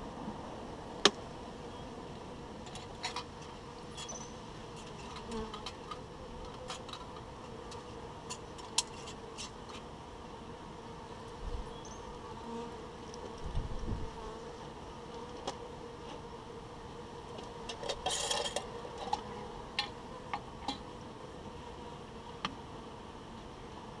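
Honeybees buzzing steadily around a wooden hive, with scattered sharp clicks and clinks as a glass jar and small tools are handled beside it. There is a low thump about halfway through and a quick run of clinks a little later.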